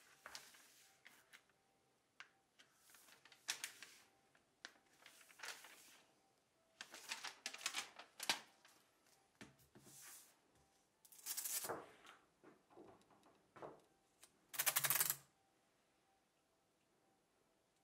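Clear plastic anti-scuff sheet and its paper backing crinkling and rustling as the backing is peeled and the sheet is laid onto a cricket bat's face. It comes as a string of short rustles, the loudest a rapid crackle of about half a second near the end.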